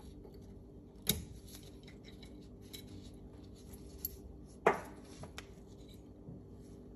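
Small steel parts of a Tanfoglio Stock 2 pistol slide clicking and clinking as they are worked out by hand with a pin punch: two sharp metallic clicks, about a second in and the loudest a little past the middle, with a few lighter ticks around it.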